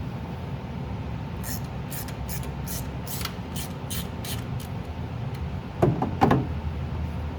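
Ratchet wrench on a long extension and 5/8 spark plug socket, clicking in a run of short strokes at about three a second as the spark plug is loosened. A brief louder squeak comes near the end.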